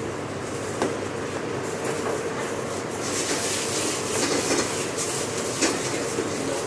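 Commercial kitchen noise: the steady rumble of the extraction hood, with a couple of sharp clatters of utensils. A louder high hiss comes in about three seconds in.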